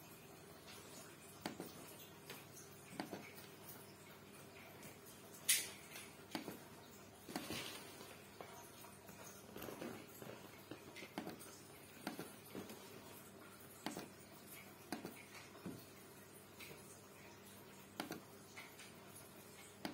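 ASUS laptop touchpad clicking: irregular single clicks, roughly one a second, the loudest about five and a half seconds in, over a faint steady hum.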